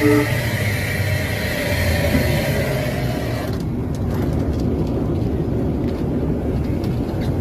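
Moving train running with a steady rumble and hiss, its horn cutting off right at the start. About three and a half seconds in the hiss drops away suddenly, leaving only a low rumble.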